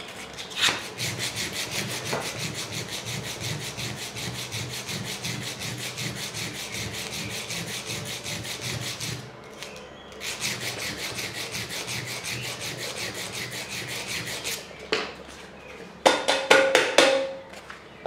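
Small metal ring rubbed back and forth on sandpaper over a steel block, flattening its edge: a fast, even scratching of several strokes a second, with a short pause about nine seconds in. Near the end come a few sharp clicks and knocks from tools and metal being handled on the bench.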